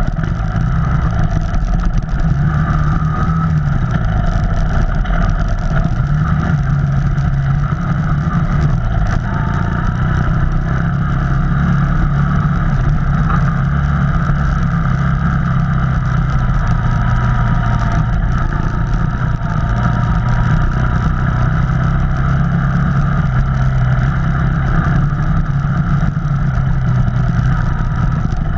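Off-road vehicle engine running without a break under a dense low rumble, its pitch rising and falling as the throttle changes.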